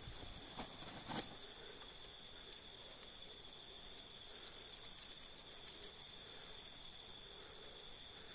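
Insects calling steadily on one high pitch. A couple of sharp clicks come about half a second and a second in, and a run of faint ticks follows in the middle.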